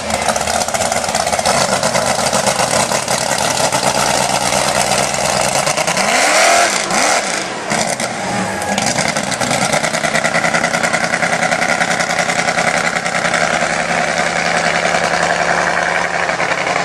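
Mud truck engine running loud, revved up and back down twice about six seconds in.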